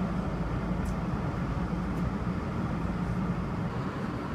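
Steady low drone of a vehicle running at a standstill, with a constant hum near the bottom and an even rumble beneath it, as heard from inside the cabin.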